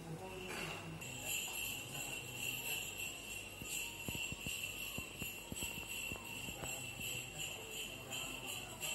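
Jingle bells shaking in a quick, even rhythm over a steady high ring.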